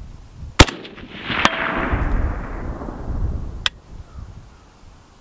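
A single rifle shot from a Rifle Dynamics custom AK built on an Arsenal SLR-107 in 7.62×39, cracking sharply about half a second in. A long rolling echo follows for about two and a half seconds, fading and dulling as it goes. Two lighter sharp cracks come during the echo, about a second after the shot and again near three seconds.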